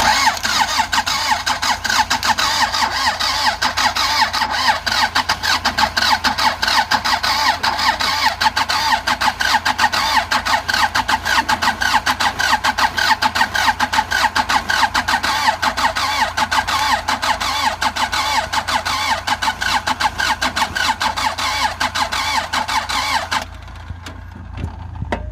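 Starter motor cranking an Andoria 4CT90 four-cylinder diesel engine in a steady, rapid rhythm for over twenty seconds without the engine catching, a no-start. The cranking cuts off shortly before the end.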